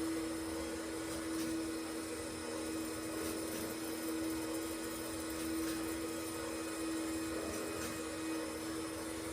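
Small electric motor running with a steady whine.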